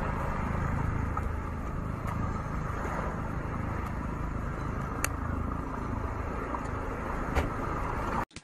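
Steady wind rushing over the microphone outdoors by the sea, a low rumble with a broad hiss. There are two sharp clicks, one about five seconds in and one near the end.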